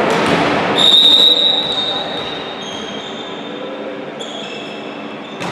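Referee's whistle blown once about a second in, a steady high note that is the loudest sound, ringing in a large sports hall. Voices come just before it, and fainter high tones linger after.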